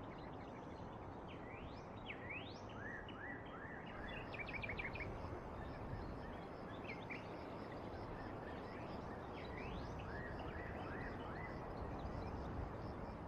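Birds chirping over a steady background hiss: repeated short rising calls, with a quick run of notes about four and a half seconds in.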